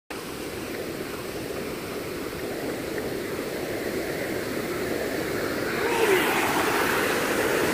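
Creek water rushing through rapids between granite boulders, a steady rush that grows gradually louder and steps up about six seconds in.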